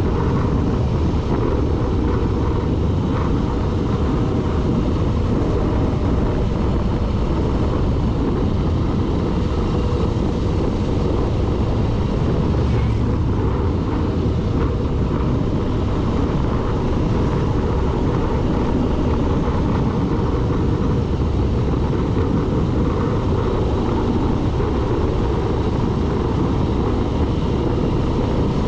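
A vehicle driving at a steady pace: a constant rush of engine and wind noise, heaviest in the low end, with no clear rise or fall in revs.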